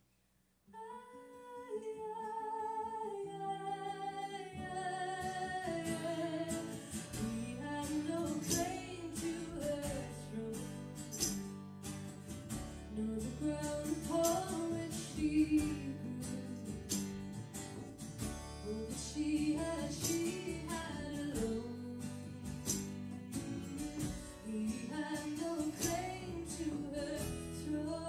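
Live folk song: a woman sings a slow melody with vibrato over her own acoustic guitar, with a double bass underneath. It begins after a brief moment of silence.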